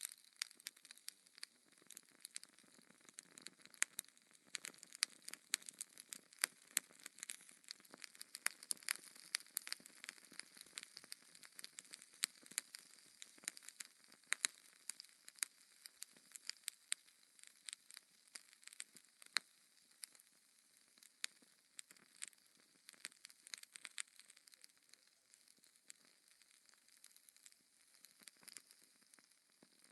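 Wood fire in a fireplace crackling, with many irregular sharp pops and snaps over a faint hiss; the pops come thickest through the middle and thin out near the end.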